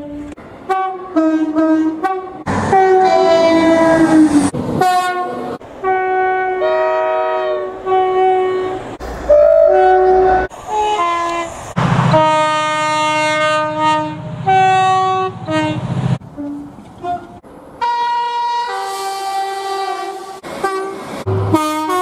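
A rapid sequence of British train horns from different classes, cut one after another: short two-tone blasts, often a high note followed by a lower one. It includes a Class 317 electric multiple unit, a Class 68 diesel locomotive and a Class 73 locomotive. One louder, longer horn about twelve seconds in has the low rumble of an engine under it.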